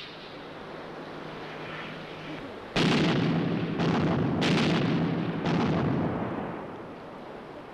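Artillery fire: a low steady hum, then a sudden loud blast about three seconds in that keeps rumbling, and three more sharp blasts over the next two to three seconds before the rumble fades.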